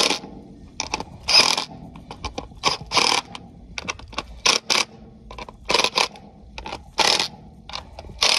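Cordless impact driver with a socket, snugging the stainless steel nuts on a sanitary well cap's hold-down bolts in short bursts, one every second and a half or so, with light metal clicks between.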